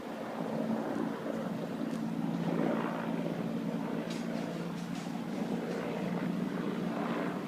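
Steady low engine drone with a constant hum, and a few faint clicks a little past the middle.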